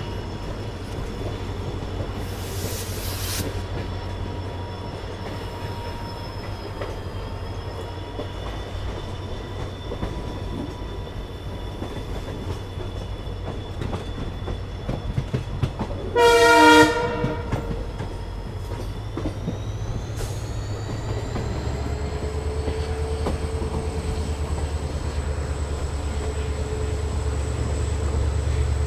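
Inside a passenger train hauled by a WDP4 (EMD two-stroke diesel) locomotive: steady running rumble with wheels clicking over rail joints, and a short, loud horn blast a little past halfway. About three-quarters of the way through, the locomotive's low engine hum grows louder and stays up.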